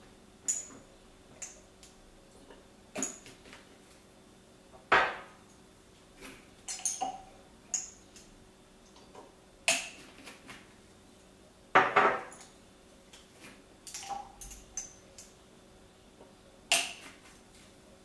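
Small glass dropper bottles being handled on a stone countertop: caps twisted off and on, and bottles picked up and set down. The result is an irregular string of sharp clicks and knocks.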